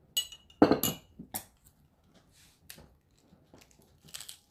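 Utensils clinking and knocking against dishes a few times, the first clink ringing briefly. Near the end, a short crisp rustle as lettuce leaves are laid on a burger.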